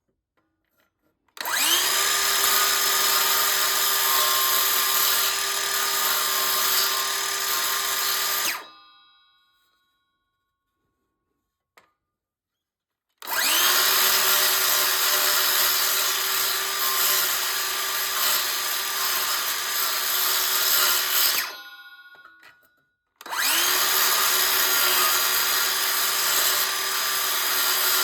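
Handheld electric power tool run in three long bursts of several seconds each. Each starts with a quick rising spin-up, then holds a steady motor whine. The first burst winds down gradually when released.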